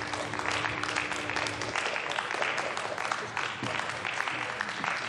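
Applause: many hands clapping steadily in a large hall.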